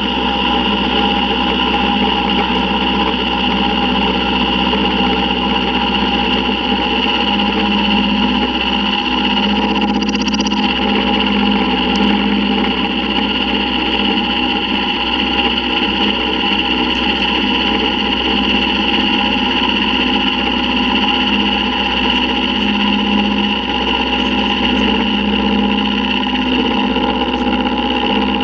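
Milling machine running steadily, its end mill cutting out the inside of a T6 turbo exhaust flange: a steady machine drone made of several held tones, even in level throughout.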